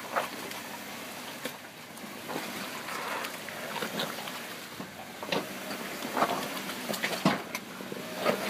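Lifted Jeep Wrangler on large mud tyres crawling through deep mud at low speed: the engine runs low and steady under scattered knocks and splats as the tyres work over mud and rocks.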